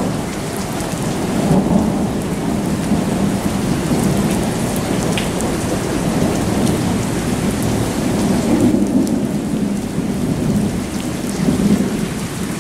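Heavy thunderstorm rain pouring and splashing, with rolling thunder rumbling through it. The rumble swells louder about two seconds in, and again around nine seconds and near the end.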